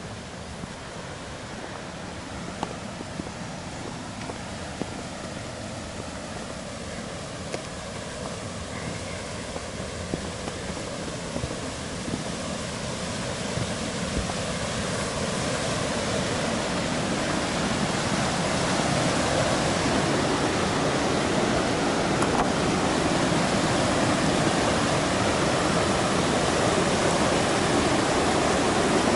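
Rushing water from a rocky river's rapids, a steady hiss that grows louder and louder. A few footsteps on the trail sound in the first half.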